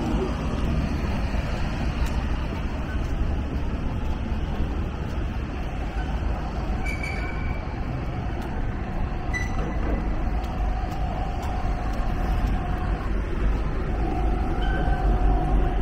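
City street traffic: a steady low rumble of passing vehicles, with two brief high-pitched tones about seven and nine seconds in and a droning engine note through the second half.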